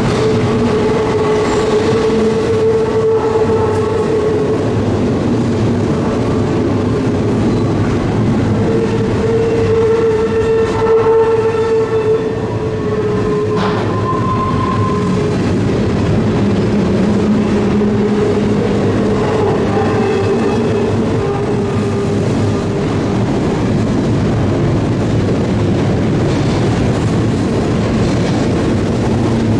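Double-stack intermodal freight cars rolling past close by: a steady, loud rumble and clatter of steel wheels on rail, with drawn-out wheel squeal rising and fading at times.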